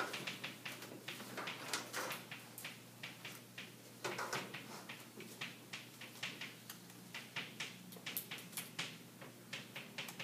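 Chalk tapping and scratching on a chalkboard as words are written: a quick, irregular run of quiet clicks and short scrapes, over a low steady hum.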